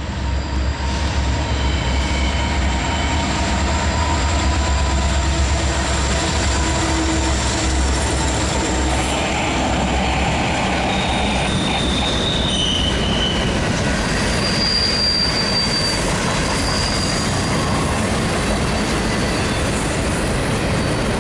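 Mixed freight train cars rolling past: a steady rumble and clatter of wheels on rail, heaviest in the first half. High thin wheel squeals come and go in short streaks.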